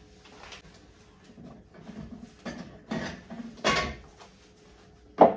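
Kitchen handling sounds: several light knocks and clatters of dishes and utensils, with one sharp, loud knock near the end.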